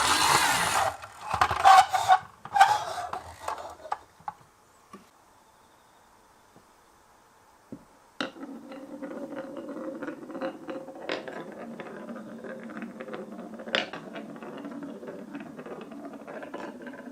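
Glass marbles clattering together in a loud burst of knocks over the first few seconds, then a pause, then from about eight seconds in marbles rolling steadily along a track, with scattered clicks as they strike it.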